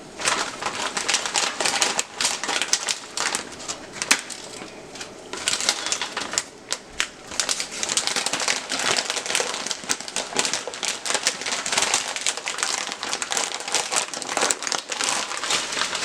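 Plastic package of noodles crinkling and rustling as it is handled and opened, with many small crackles and a short lull about six seconds in.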